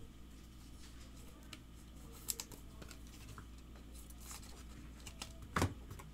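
Trading cards being flipped through and handled by hand, giving soft rustling and light clicks, with a sharper click about two seconds in and the loudest near the end.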